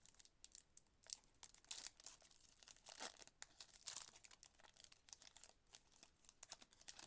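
Trading card pack wrapper being torn open and crinkled by hand, an irregular run of crackling rustles that stops suddenly at the end.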